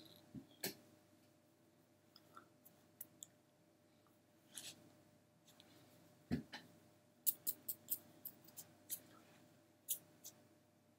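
Scattered short soft clicks and taps, with a dull knock about six seconds in and a quick run of clicks after it, from a person signing with her hands and brushing and tapping them against her fleece top.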